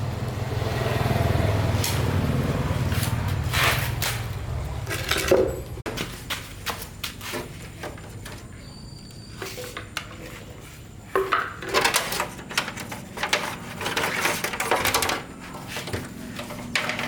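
A low rumble for the first few seconds, then many short clinks and knocks of small hard objects being handled, busiest past the middle.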